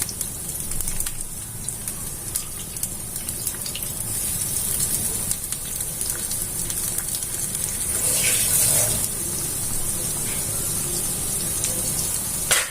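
Soya chunks deep-frying in hot oil with green chillies and curry leaves: a steady sizzle with small pops, swelling louder briefly about eight seconds in.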